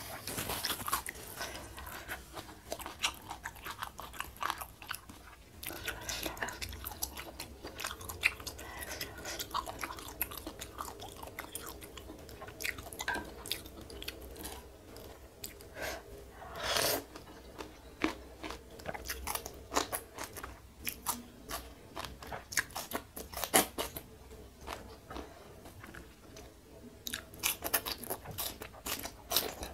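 Close-miked chewing and biting of spicy noodle soup with squid, chili and bok choy: wet mouth sounds with frequent short crunchy bites and clicks, and one longer, louder noisy sound about seventeen seconds in.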